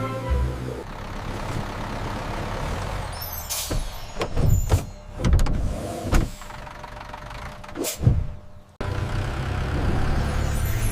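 Bus sound effects: a steady engine rumble, then a burst of hissing air and several sharp clunks. Music comes back in abruptly near the end.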